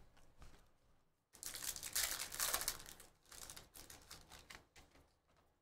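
Trading card packs being handled and opened: plastic wrappers crinkling and tearing, with cards clicking against each other. There is a dense burst of rustling about a second in, then lighter, scattered crinkles and clicks.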